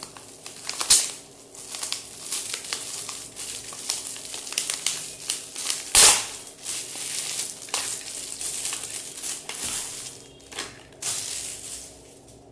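Gift-wrapping paper crinkling and tearing as a small wrapped box is unwrapped by hand, with a sharp rip about a second in and a louder one about six seconds in.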